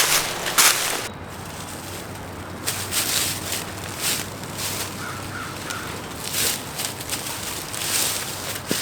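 Footsteps crunching and rustling through dry leaves and brush, irregular steps, over a faint steady hum of distant highway traffic.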